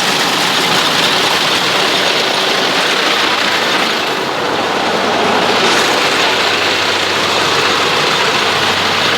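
Rice combine harvester running while harvesting: a loud, steady engine drone with dense mechanical noise from the machinery.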